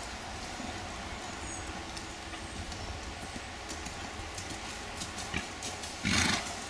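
A ridden horse's hoofbeats on a sand-and-gravel arena, a muffled, uneven clip-clop. About six seconds in, a louder short rush of noise stands out above them.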